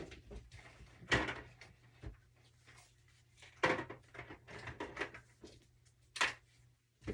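Scattered short clicks and knocks of small objects being handled, with the loudest ones about a second in, in the middle and shortly before the end.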